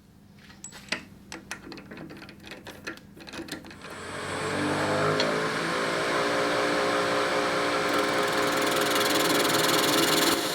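A series of clicks and knocks, then a lathe motor starting about four seconds in and running steadily with a even hum.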